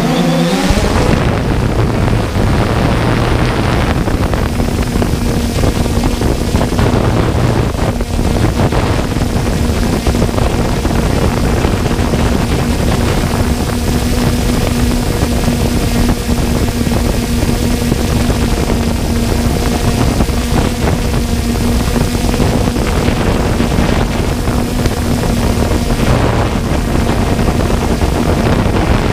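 3DR Solo quadcopter's motors and propellers running steadily in a hover: a constant whine over wind rush, heard from the camera carried on the drone.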